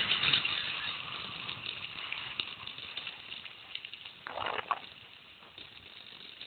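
Mountain bike tyres rolling fast over a loose gravel road on a descent, with a steady crunch and many small clicks and rattles of stones and the bike. It is loudest at the start and eases off, with a brief louder rush about four seconds in.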